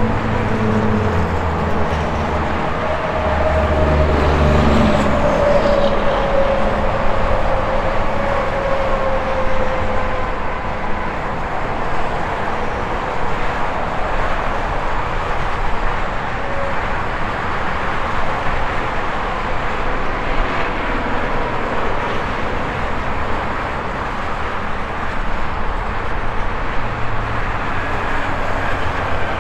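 Highway traffic noise: a steady wash of tyres and engines from passing vehicles, with a heavy low rumble and a tone falling in pitch over the first ten seconds or so as a large vehicle goes by.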